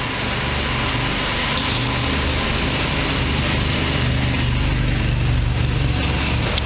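Steady low mechanical hum, like a running engine or machine, under a broad rushing noise; the hum grows a little louder about four seconds in.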